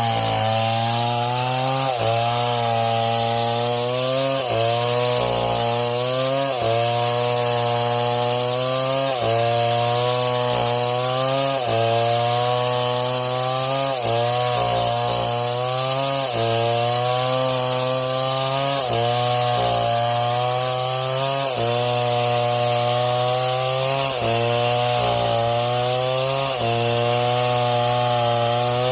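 Chainsaw cutting through wood, its engine note dipping under load and climbing back about every two seconds over a steady hiss of the chain.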